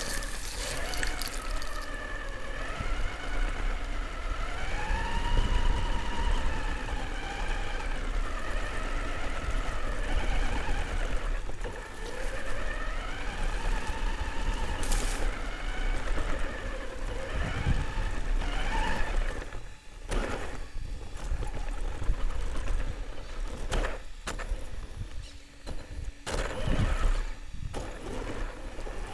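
Upgraded electric motor of a Himoto RC car whining, its pitch rising and falling with the throttle over a low rumble, for most of the first two-thirds. In the last third the whine fades and a series of sharp knocks follows.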